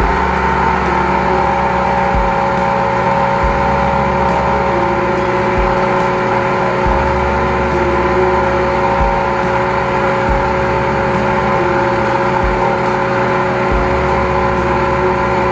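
High-pressure drain jetter running steadily at a constant pitch while its hose jets a blocked sewer line. A low rumble underneath comes and goes every second or two.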